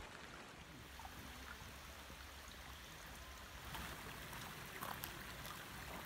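Shallow, rocky woodland creek trickling: a faint, steady hiss of running water.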